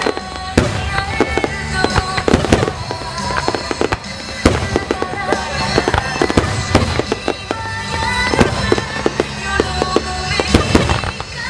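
Starmine fireworks barrage: many sharp shell bursts and crackles going off in quick succession, some in rapid clusters, with music playing alongside.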